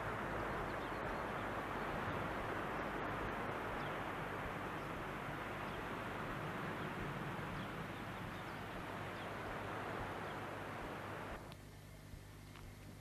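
Outdoor ambience: a steady rushing hiss with faint, scattered bird chirps, cutting off suddenly near the end.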